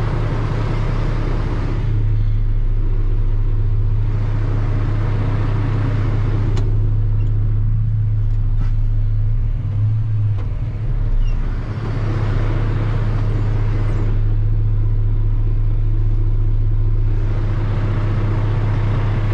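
A truck engine running steadily with a low hum, with a brief shift in pitch about ten seconds in.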